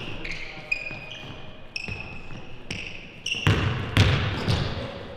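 Basketball dribbled on a hardwood court, with sneakers squeaking in short high chirps. About three and a half seconds in comes a louder flurry of thuds and squeaks as the ball-handler drives.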